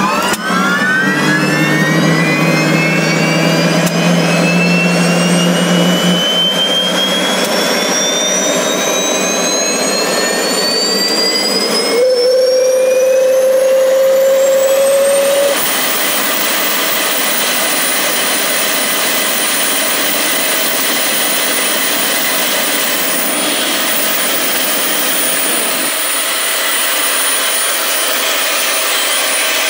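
1962 AiResearch GTP 70-19 gas turbine starting and spooling up: a loud whine climbs steadily in pitch for about fifteen seconds, then levels off into a steady high whine over a rushing exhaust noise as the turbine runs up to speed.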